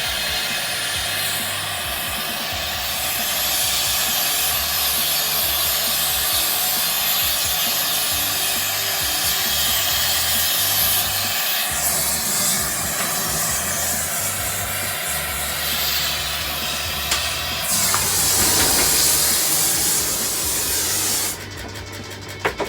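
Torch flame hissing steadily as metal melts in the crucible of a centrifugal casting machine. Near the end the hiss cuts off suddenly, followed by a couple of sharp knocks and a fast, even ticking as the wound-up casting arm is released and spins.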